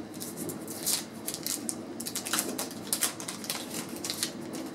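Wax-paper wrapper of a 1988 Fleer baseball card pack crinkling as it is pulled open by hand: a run of irregular crackles, the sharpest about a second in and again about three seconds in.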